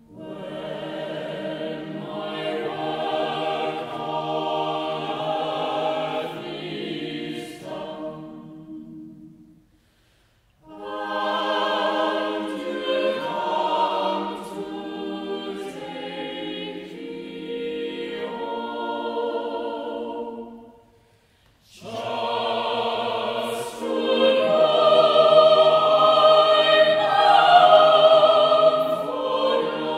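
Choir singing sustained chords in three phrases, each broken off by a brief silence, the last phrase the loudest.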